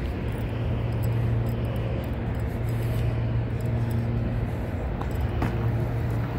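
Steady low engine hum with a faint hiss above it, holding even without rising or falling.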